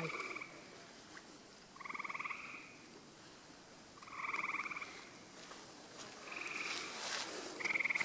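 Frogs calling: short pulsed trills, each under a second long, repeating about every one and a half to two seconds.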